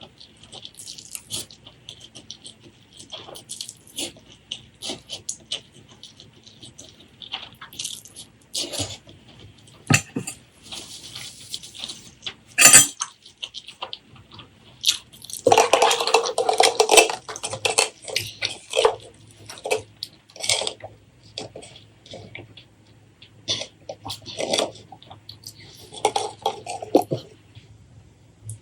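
Close-up eating sounds of spicy boiled eggs and noodles: utensils clicking against the dishes, with chewing and mouth sounds. There are sharp clinks a little before the middle, then a dense noisy stretch of eating just past the middle.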